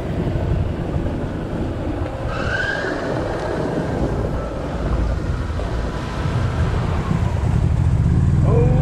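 Golf cart driving over a rough gravel track: a steady low rumble of the running cart and its wheels over the ground, with a brief squeak about two and a half seconds in. The rumble grows louder near the end.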